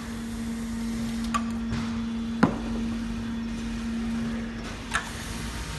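Semi-automatic round-bottle labeling machine running with a steady electric-motor hum. Three sharp clicks come through it as bottles are set into the rollers, the loudest about two and a half seconds in.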